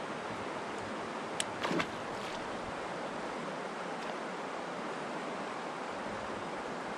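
Steady outdoor hiss of wind and water around a drifting boat. About a second and a half in there is a sharp click, then a quick falling swish: a fishing rod being cast.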